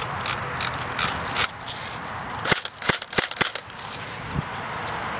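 Dry leaves and gear rustling, then a quick run of sharp clacks about halfway through: airsoft guns firing.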